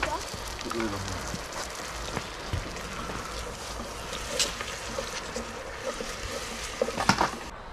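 Onions and garlic sizzling in a pot, a steady frying hiss, with small clicks as a wooden spoon stirs them.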